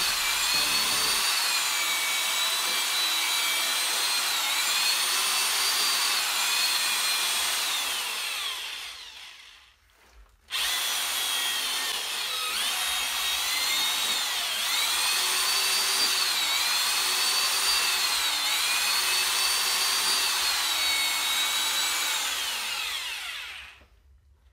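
Electric drill with a paddle mixer stirring wet shredded paper and cardboard into briquette pulp in a plastic bucket: a steady motor whine whose pitch dips and rises repeatedly. It winds down and stops about nine seconds in, starts again abruptly a second later, and winds down again near the end.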